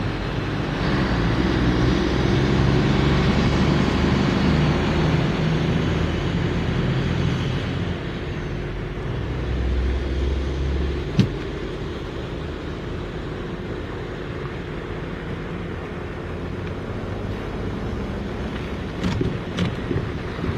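A diesel locomotive's engine running as a train passes, loudest over the first several seconds and then easing off. A sharp clank comes about eleven seconds in, and a few more clanks follow near the end.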